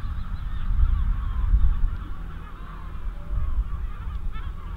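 A flock of birds calling over and over in short, overlapping honk-like calls, over a steady low rumble.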